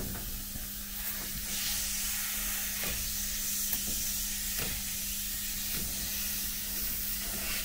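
Compressed air hissing steadily from a leak in a passenger carriage's air line, the tube from the air receivers to the toilet, burst and patched with electrical tape. A low steady hum runs underneath.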